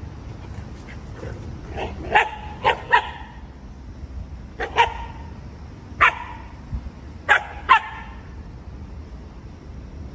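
A dog barking: short, sharp barks in clusters of one to three, about eight in all, ending about eight seconds in.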